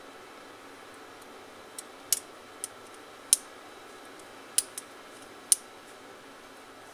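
A plastic ballpoint pen clicked by hand: about seven sharp, high clicks at uneven intervals, some in quick pairs like a push button pressed and let go.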